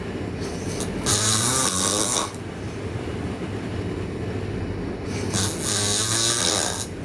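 A sleeping girl snoring loudly: two snores about five seconds apart, each lasting about two seconds, with a fluttering rattle in each.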